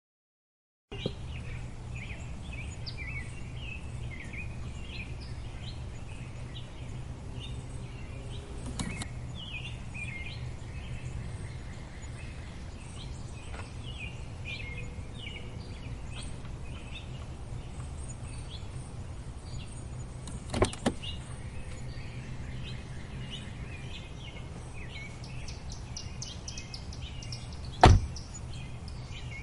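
Birds chirping busily over a steady low rumble, starting after about a second of silence. A few sharp clicks break in, the last and loudest near the end.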